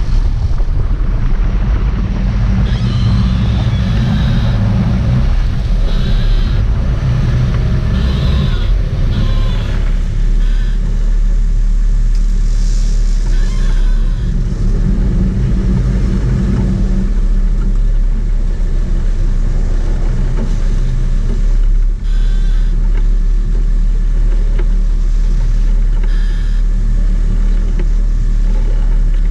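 A sportfishing boat's inboard engines running under load, a loud steady low rumble, while the boat backs down on a hooked blue marlin and churns white water at the stern. The rumble is heaviest in the first ten seconds or so, with a rushing haze of wind and water over it.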